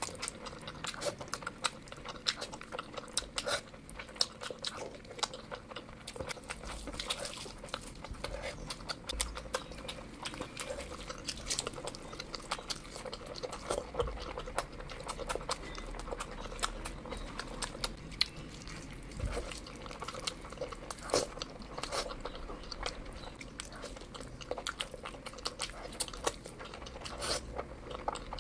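Close-up eating sounds: chewing with a steady run of small, wet mouth clicks, from someone eating curry with rice.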